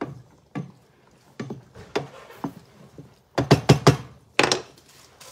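Wooden spoon knocking against the rim and sides of a metal pan of soup while stirring: scattered clacks, then a quick run of four or five louder knocks about three and a half seconds in.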